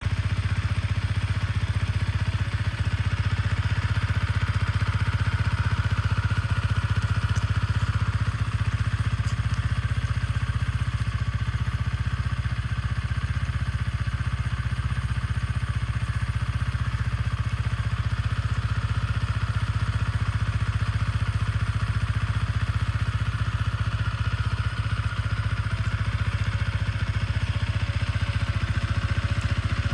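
Yamaha XSR155's single-cylinder four-stroke engine idling steadily through its stock exhaust, with no revving.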